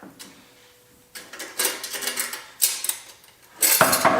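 Hand tools working on a turbo installation: a run of quick mechanical clicks and short metal clanks, in four or five separate bursts, as the turbocharger and its piping are unbolted.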